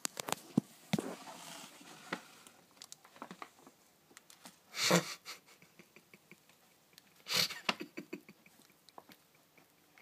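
A kitten moving about inside a photocopy-paper ream wrapper, scratching and rustling it: light scratches and clicks throughout, with two louder rustles about five and seven and a half seconds in.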